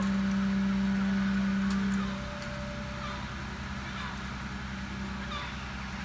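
Fire brigade aerial ladder truck's engine running with a steady hum, dropping in level about two seconds in. Birds chirp faintly.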